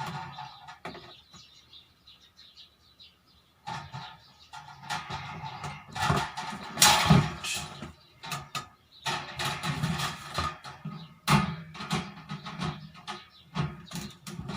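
Plastic parts of a table fan being handled and snapped together: irregular clicks, knocks and rattles, a cluster of louder knocks about halfway through.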